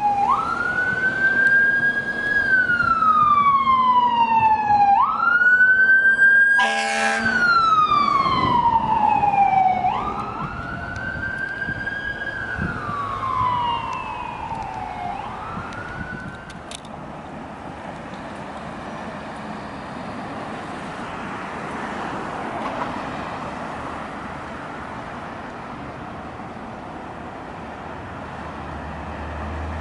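A responding ambulance's siren wailing in slow rising and falling sweeps, about five seconds each, with a short horn blast about seven seconds in. The siren fades out after about sixteen seconds, leaving steady traffic noise.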